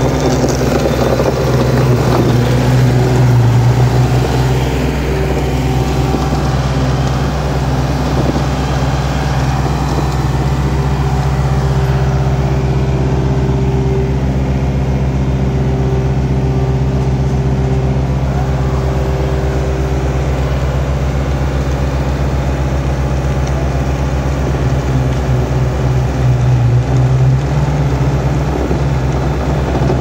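Engine of a slipform concrete kerb machine running steadily as the machine extrudes a kerb, swelling a little louder twice.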